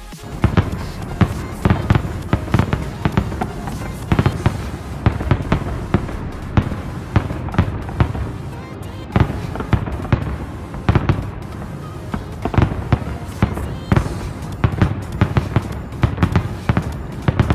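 Fireworks display: a dense barrage of bangs and crackling, several explosions a second with no break, starting suddenly.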